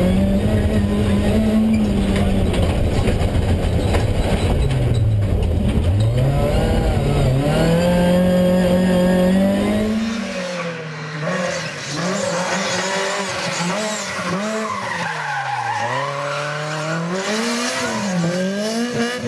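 BMW 318is E36 rally car's four-cylinder engine revving hard, its pitch climbing and dropping with the gear changes, heavy with low rumble as heard inside the cabin. About ten seconds in the sound turns thinner, heard from outside the car, with the revs rising and falling quickly over and over.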